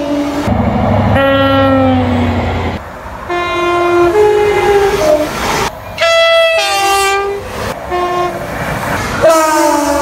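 Passenger trains' two-tone horns sounding one after another, about five times, each a high note and a low note in turn. Under the first, the train rumbles past and the horn's pitch sags.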